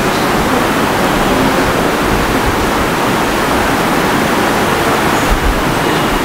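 Steady, loud hiss spread evenly across the whole range, with no tone or rhythm in it, and a soft low bump about five seconds in.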